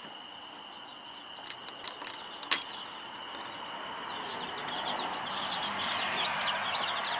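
Many young chicks peeping softly in a brooder, starting about four and a half seconds in and growing denser, over the steady trill of night crickets. A few sharp clicks come earlier, as the coop door is handled.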